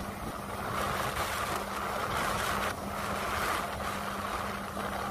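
Boat engine running steadily with a constant low hum, under a rushing of wind and water.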